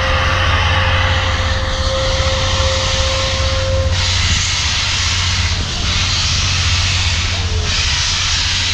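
Union Pacific Big Boy 4014 steam train running: a loud, steady roar and rushing noise over a deep rumble. A thin steady high tone sounds through about the first four seconds, then stops.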